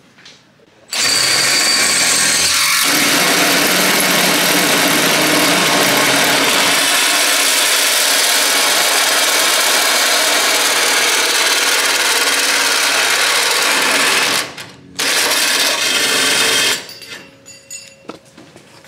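Cordless drill driving a hole saw through the sheet-steel radiator support: a loud, steady cutting noise starting about a second in. It breaks off briefly near the end, runs again for about two seconds, then stops.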